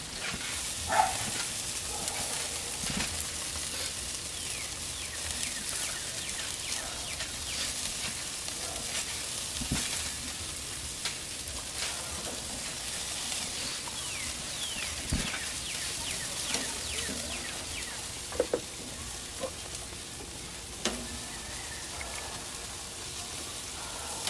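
Chicken wings sizzling on a charcoal grill, a steady crackling hiss. A few sharp clicks come from the metal tongs against the grate, one about a second in and two more near the end.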